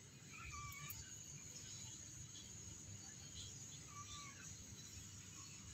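Newborn kitten giving two faint, short mews about three and a half seconds apart.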